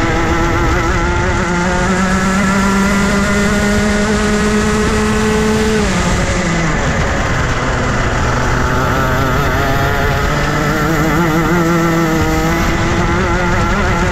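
Rotax Max Junior 125cc single-cylinder two-stroke kart engine running hard. Its revs climb steadily for about six seconds, fall sharply as the throttle comes off, then climb again.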